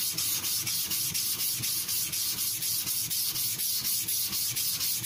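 Carbon-steel nakiri blade ground back and forth on a coarse King 300-grit water stone, a gritty scraping in quick, even strokes of about four a second. The stone is covered in its own mud, which is left on to keep the abrasive particles working as the wide bevel is flattened.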